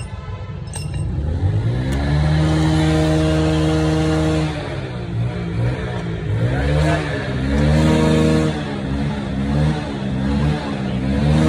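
Royal Enfield single-cylinder motorcycle engine being revved. The revs rise about two seconds in and are held for a couple of seconds, then fall back. They rise again, followed by short up-and-down blips of the throttle near the end.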